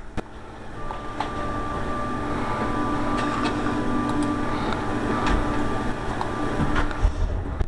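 A steady mechanical drone with two held tones, one high and one low, that builds about a second in and cuts off near the end, with scattered sharp clicks over it.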